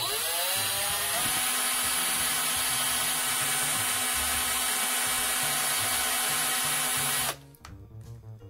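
Electric drill with a twist bit boring into a small piece of light driftwood: the motor spins up with a rising whine, runs steadily for about seven seconds, then stops abruptly.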